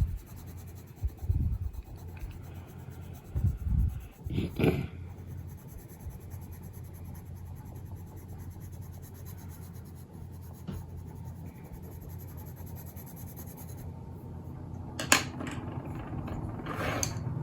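Watercolour pencil rubbing and scratching over paper as a page is coloured. There are a few soft knocks and sharp clicks from handling pencils on the table: several in the first few seconds and two more near the end.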